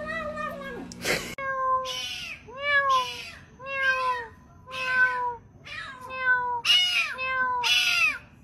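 Domestic cats meowing: one drawn-out meow that falls away, then a string of about ten short meows, roughly one a second, each dropping in pitch at its end.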